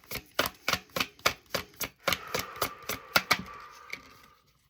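A deck of oracle cards being shuffled by hand: a quick, even run of crisp card clicks, about four to five a second, fading out near the end.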